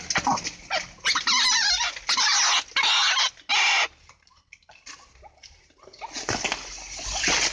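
White-breasted waterhen calling: a loud, harsh run of four calls starting about a second in, each under a second long. After them it goes much quieter, with fainter rough sounds building again near the end.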